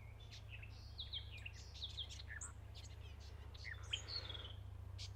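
Wild birds calling: a busy run of short chirps and whistled notes that slide up and down in pitch, over a steady low rumble.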